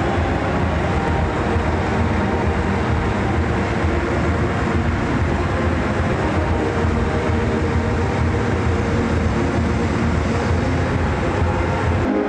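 Football stadium crowd noise: a steady, loud din from the packed stands, with clapping.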